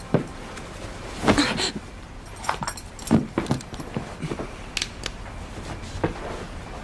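Bedding and a pillow rustling, with a string of light knocks and small metallic clicks as a revolver is handled at the pillow.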